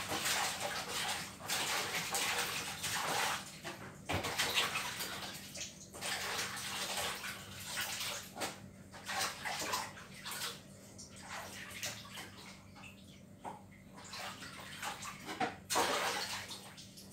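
Water running and splashing in uneven bursts, heaviest over the first few seconds and again briefly near the end, with a few sharp knocks in between.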